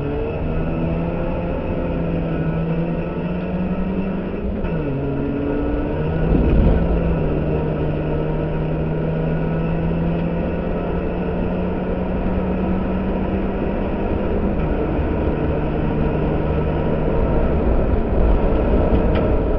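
Ford Fiesta race car's engine under hard running, heard from inside the stripped cabin. Its note climbs slowly and drops sharply twice, about five seconds in and again about fifteen seconds in, as it shifts up. A louder low rumble comes about six seconds in and again near the end.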